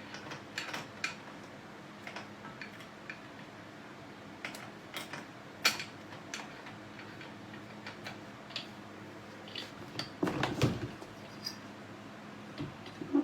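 Scattered light clicks and knocks of parts being handled and fitted, with a denser clatter and a heavier thump about ten seconds in, over a faint steady hum.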